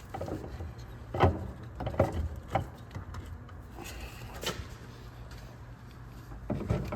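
A handful of sharp knocks and clunks at uneven intervals as a replacement front strut assembly is worked up into the strut tower, bumping against the body while its top studs are lined up with the mounting holes.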